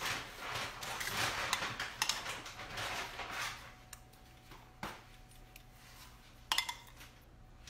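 Metal spoon scraping and clinking against a small glass bowl while scooping out a sauce and spreading it over salmon, busiest over the first three seconds, then quieter with two sharp clinks.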